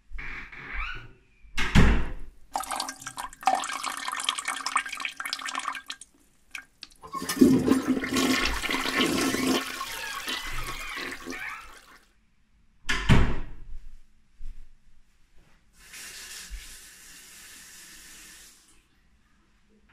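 A door thumps shut, then a toilet flushes with a long rushing of water. A second door thump comes about 13 s in, followed by a tap running briefly at a sink.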